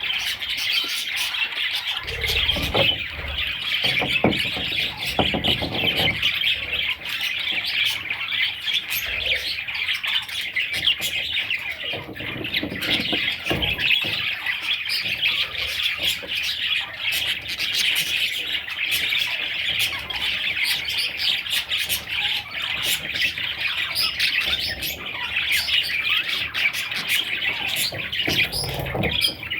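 A group of budgerigars chattering and squawking without a break, a dense run of short overlapping chirps.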